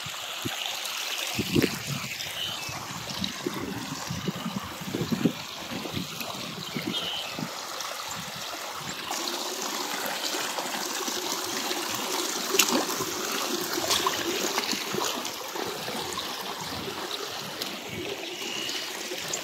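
Shallow river water running steadily over and along the edge of a low-water crossing slab, a continuous trickling rush.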